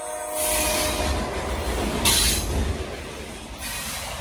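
Freight train of hopper cars rolling past close by: a low rumble of steel wheels on the rails under a rushing hiss that swells and falls as the cars go by, loudest about two seconds in. A thin wheel squeal fades out within the first second.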